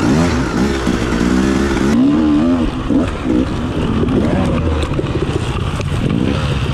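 Dirt bike engines revving on a trail, the pitch rising and falling with the throttle. About two seconds in the running turns lower and more uneven, and just before the end there is a sharp knock as the bike tips over into the brush, its engine still running steadily.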